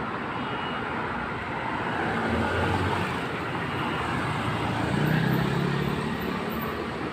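Road traffic noise: a steady rush with a low engine rumble that swells twice, a little after two seconds and again about five seconds in.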